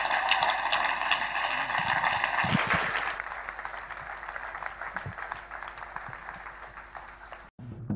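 Audience applauding, fading gradually over several seconds and then cut off abruptly near the end.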